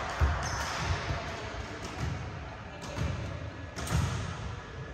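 Several dull thumps of a volleyball in play and players' feet on the court, echoing around a large gymnasium, with faint voices under them. The sharpest thumps come just after the start and about four seconds in.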